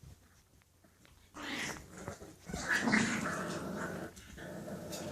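English Bulldog puppy growling in rough bouts with short breaks, starting about a second and a half in.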